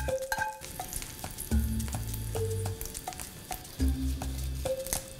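Background music: held bass notes recurring about every two seconds under short, separate melody notes, with a steady scatter of crisp percussion ticks.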